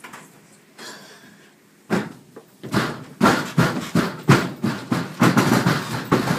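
Footsteps of actors running and stomping across a stage floor: a quick, uneven run of heavy thuds, about three or four a second, starting about two seconds in.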